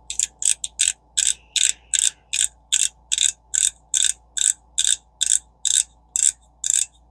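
Front drag knob of a Shimano Syncopate 2000 spinning reel being screwed down onto the spool, its clicker giving off sharp, even clicks about two and a half times a second as the drag is tightened.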